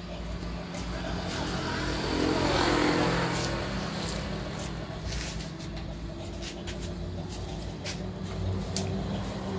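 A motor vehicle's engine running with a steady low hum, swelling louder about two to three seconds in as it passes.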